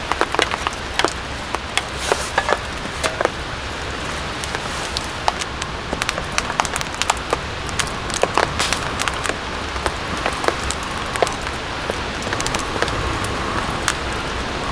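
Rain falling on a tent's fabric: a steady hiss with many sharp drops tapping at irregular moments.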